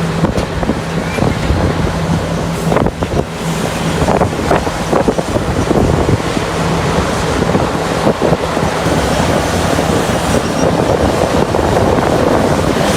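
Heavy mining machinery at work, most likely the CAT 6015B hydraulic excavator's diesel engine running with a steady low hum. Scattered knocks come through, and wind buffets the microphone.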